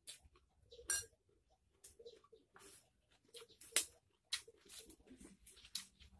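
Close eating sounds: irregular wet chewing and lip smacks, mixed with crisp rustling and crackling of raw leafy greens handled, torn and folded by hand, with sharp clicks about a second in and near the four-second mark.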